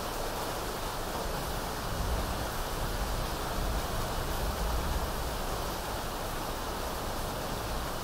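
A fan running steadily together with rain, making an even noise with a low rumble that swells slightly in the middle.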